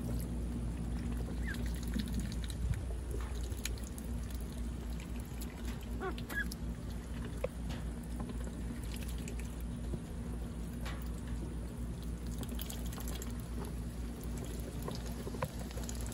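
A duck dabbling its bill in a shallow tub of water: a steady run of small splashes, slurps and dribbling water, with a few faint chirps around the middle.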